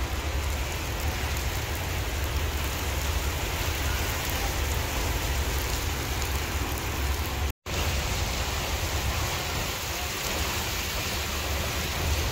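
Heavy rain pouring steadily onto wet paving, with strong wind buffeting the microphone as a low rumble. The sound drops out completely for a moment just after halfway.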